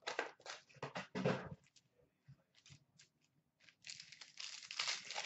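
Panini Select hockey card pack wrappers crinkling in the hands and being torn open: crackly rustling in the first second and a half, then a longer rip starting about four seconds in.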